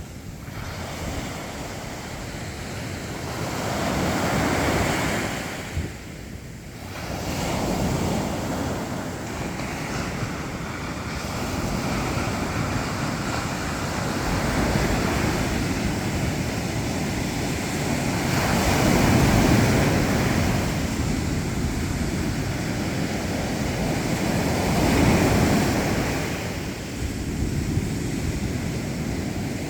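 Black Sea surf: waves breaking and washing ashore as a steady rush that swells and eases at uneven intervals of several seconds, with a short lull about six seconds in.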